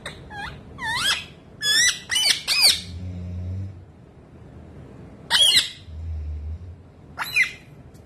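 Rose-ringed (Indian ringneck) parakeet giving short, rapid chirping squawks: a quick string of calls in the first three seconds, then two more single calls later. This is courtship calling directed at a person's foot.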